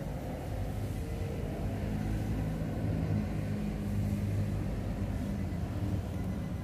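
A vehicle engine running steadily at idle, a low rumble that grows a little louder after about a second.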